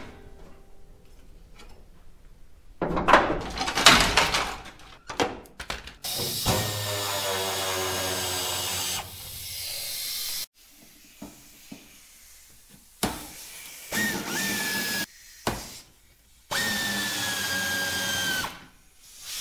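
Hand-held pneumatic ratchet on an air hose, run in bursts: two steady whirs of two to three seconds each, the pitch sagging a little as each one runs, with short blips between them. A clatter of handling comes a few seconds before the first whir.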